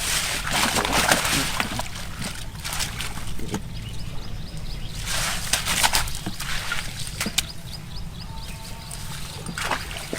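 Water splashing and sloshing in two bursts, one at the start lasting about two seconds and another about five seconds in.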